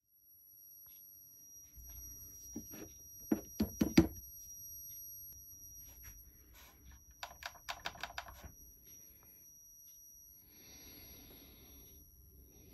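A series of sharp clicks and taps: a few loud ones about three to four seconds in, then a quick run of about eight near the eight-second mark, followed by a short hiss, all over a faint steady high-pitched whine.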